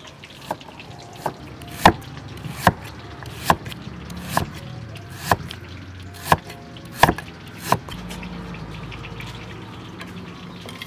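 Cleaver slicing raw beetroot on a round wooden chopping board: about ten sharp knocks of the blade striking the board, roughly one a second, which stop about eight seconds in.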